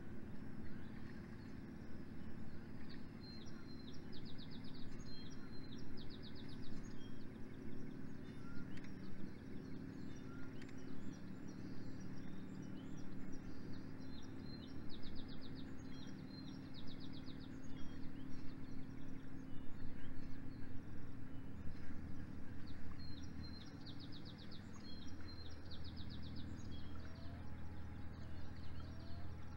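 A songbird sings a short high trilled phrase three times, about ten seconds apart, over a steady low motor hum that shifts in pitch near the end.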